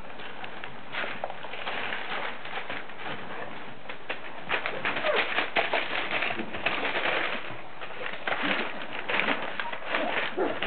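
Border collie puppies whimpering in short, wavering calls, among many quick scratches and clicks from their claws on the tile floor and wire pen, busiest in the middle.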